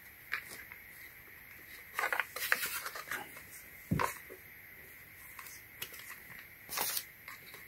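Handling noise from a Brookstone 12 V tire inflator's plastic housing and power cord as it is turned over in the hands, with scattered rustles and clicks. The loudest cluster comes about two to three seconds in, followed by a sharper knock about four seconds in and a short rustle near the end. The compressor itself is not running.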